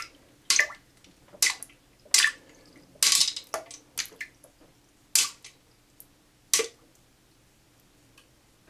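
Cough drops dropped into a toilet bowl's water: about ten sharp, irregular plops and splashes that stop about seven seconds in.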